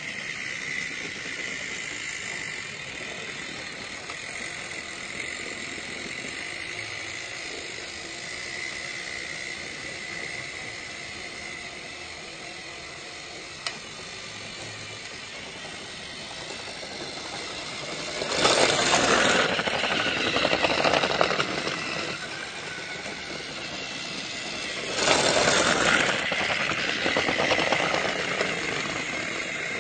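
A small motor running with a steady whine, with a single click about midway. Near the end come two louder noisy surges of a few seconds each, the second about six seconds after the first.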